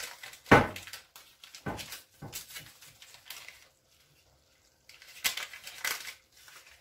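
Kitchen handling sounds at a counter: a sharp knock of something set down about half a second in, a few lighter knocks and clicks, then the crinkling of a small paper packet being handled from about five seconds in.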